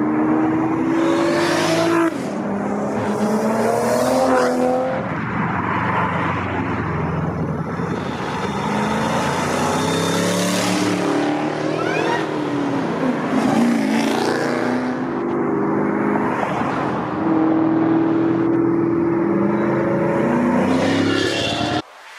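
High-performance car engines revving and accelerating away one after another, each exhaust note rising and falling in pitch as the car goes, until the sound cuts off near the end.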